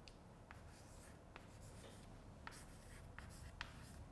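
Chalk faintly scratching and tapping on a blackboard as a word is handwritten, with a scatter of light ticks as the chalk strikes and lifts.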